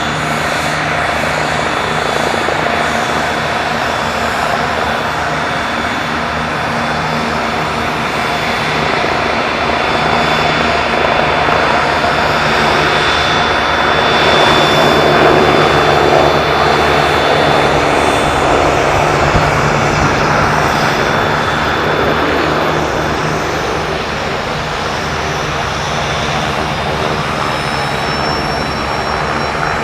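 Helicopter running with a steady high turbine whine, growing louder to a peak about halfway through, then easing off.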